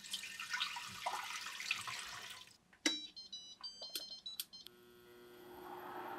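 Water poured from a jug into a pot with a steel steamer basket, splashing for about two seconds. About three seconds in, an induction cooktop's touch controls click and beep several times, and then a steady electrical hum starts with a fan noise rising under it as the hob begins heating.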